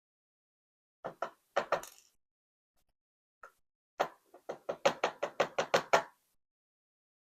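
A series of sharp knocks as parts of a pin-tumbler lock are tapped against a hard surface while the lock is taken apart: a couple of taps about a second in, a few more just after, then a quick run of about ten knocks, roughly five a second.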